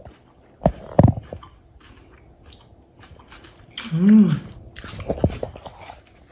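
Close mouth sounds of chewing and biting into escovitch fish with onions, with a few sharp clicks scattered through and a short hummed "mm" about four seconds in.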